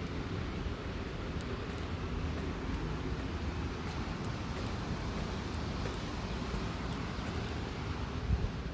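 Steady low rumbling rush of wind on the microphone, with a brief louder bump near the end.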